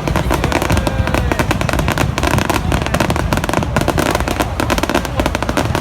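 Fireworks display: a dense, unbroken run of rapid cracks and bangs, many shells bursting close together.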